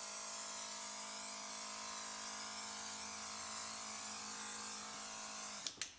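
Andis GTX EXO cordless hair trimmer running with a steady hum, then switched off with a couple of clicks near the end.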